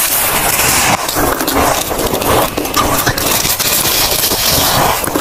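Close-up biting and chewing into a clump of flavored freezer frost: dense, crisp crunching and crackling that goes on without a break.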